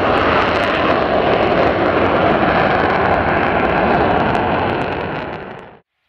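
An F-35A's Pratt & Whitney F135 jet engine gives a loud, steady roar as the fighter climbs away. The roar eases off about five seconds in and then cuts off abruptly.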